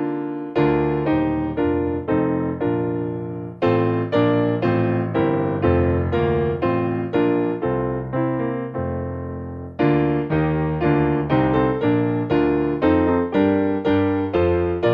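Slow background piano music: single struck notes about two a second, each dying away, with a new phrase starting about 4 seconds in and again about 10 seconds in.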